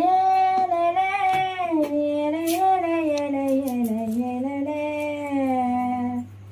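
A woman's voice holds one long drawn-out sung note for about six seconds, wavering slowly and sinking in pitch, then stops abruptly.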